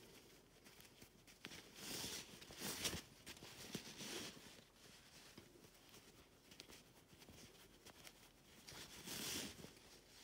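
Faint rustling of skirt fabric as hands bunch it up on a safety pin and pull it along to thread elastic through the waistband channel. It comes in a few soft spells: about two seconds in, around four seconds, and again near the end.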